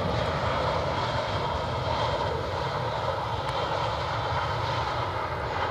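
Jet engines of an Airbus A319 airliner rolling out on the runway just after landing: a steady, even engine noise.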